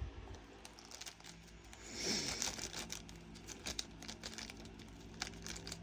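Small plastic bag crinkling, with scattered light ticks of diamond-painting drills being handled, a little louder about two seconds in. The drills are clinging to the bag with static.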